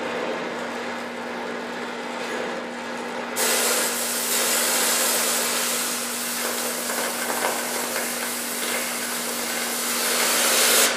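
DHC2000 oxy-acetylene cutting torch burning with a steady flame hiss on steel plate. About three seconds in, the cutting-oxygen jet opens with a sudden, much louder hiss as the torch cuts through the steel. The hiss cuts off suddenly near the end.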